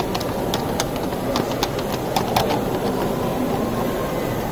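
Hall crowd hubbub with a string of light, irregular clicks from a 16mm-scale model train's wheels running over the garden-railway track.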